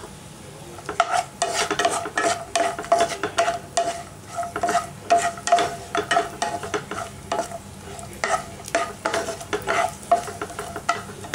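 Wooden spatula stirring and scraping cashews, raisins and almonds around a non-stick pan, in quick repeated strokes, over a light sizzle of ghee frying the nuts.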